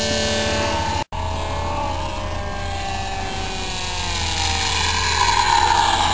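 A small RC plane's geared brushless electric motor (HIMAX 2015-4100, 6.6:1 gearbox) spinning a cut-down 9x6 propeller, whining in flight. Its pitch drifts slowly down, then climbs toward the end as the plane speeds up or passes close. The sound cuts out for an instant about a second in.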